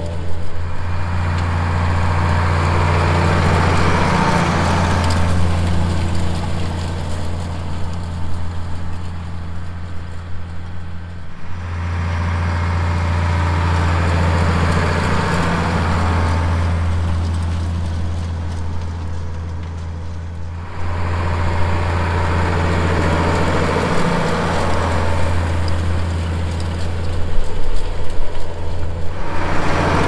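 Case IH Magnum tractor's six-cylinder diesel running steadily under load while it pulls a rotary hoe through dry soil, with a rushing noise that swells and fades in three stretches.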